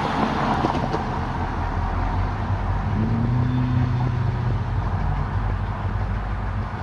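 A car passes close by at the start, over the low, steady running of a Canadian Pacific diesel locomotive moving slowly under power, and a deeper pitched hum joins in about three seconds in.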